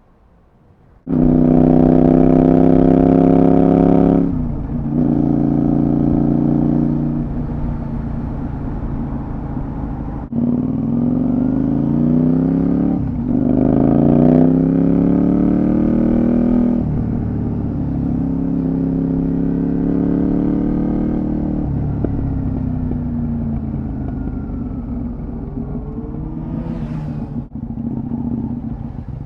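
Honda VTR250's 90-degree V-twin running through a Moriwaki full exhaust system, starting loudly about a second in and held at high revs, then climbing in pitch through several gear changes with brief drops between them, and falling in pitch as it slows later on.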